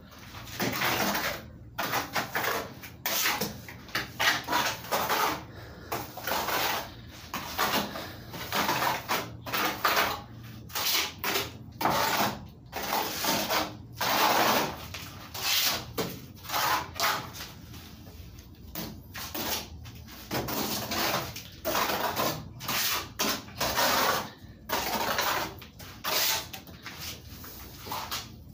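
Plastering trowel scraping and spreading wet cement plaster on a concrete block wall, in quick irregular strokes, each a second or less, with short pauses between.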